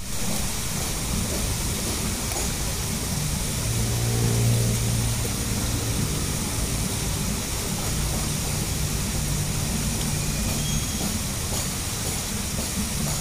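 Steady hiss of fritters frying in hot oil in a pan over a wood fire, with a low engine hum underneath that is strongest about four seconds in.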